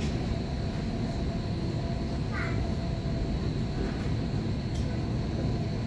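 Tram running, heard from inside the passenger car: a steady low rumble with a thin high whine over it.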